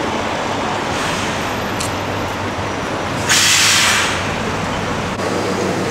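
Street traffic: a steady rumble of vehicle engines, with a loud hiss lasting under a second about three seconds in.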